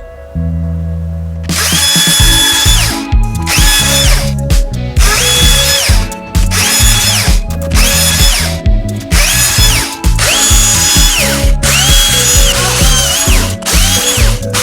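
Power drill run in repeated short bursts, about ten in all, starting a second and a half in; each time the motor whine rises, holds and falls as the trigger is pulled and released.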